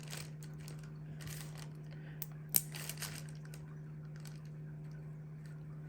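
A few light clicks and taps of stickers and paper being handled and pressed onto planner pages, the sharpest about two and a half seconds in, over a steady low hum.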